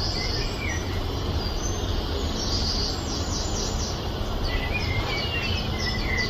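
Birds chirping and whistling, many short calls overlapping, over a steady low background rumble.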